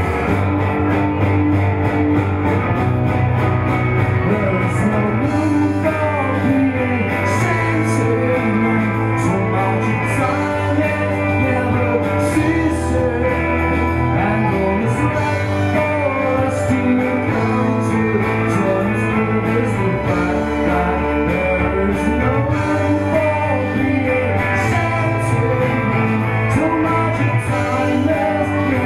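A man singing a slow rock song live over his own electric guitar, with low bass notes that change every few seconds underneath.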